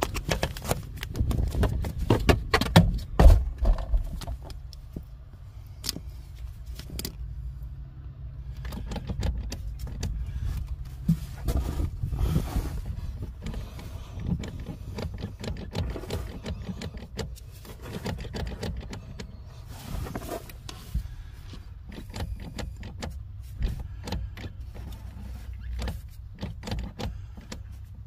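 Irregular clicks, clinks and knocks of hand tools and metal parts being handled under a car's dashboard, loudest in the first few seconds, over a steady low rumble.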